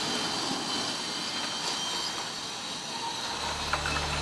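Steady background noise with a faint high whine. About three seconds in, a low steady music drone begins.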